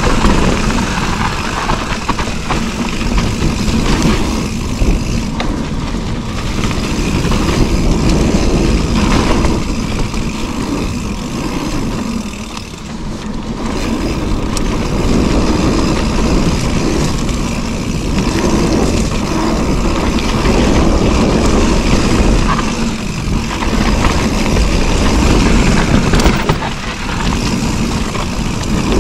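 Mountain bike descending a dirt singletrack: steady wind rush on the microphone and rumble of tyres on dirt, with scattered rattles and knocks from the bike over bumps. The noise eases briefly twice, about halfway through and near the end.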